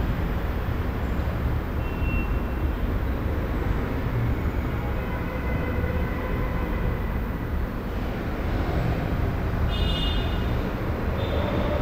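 Residential room tone: a steady low rumble with a hiss over it. A few faint high tones come and go, the clearest a brief high-pitched sound about ten seconds in.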